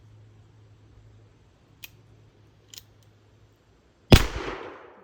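A .44 black powder percussion revolver, an 1858 Remington Army: two light clicks, then a single loud gunshot about four seconds in that rings out for most of a second.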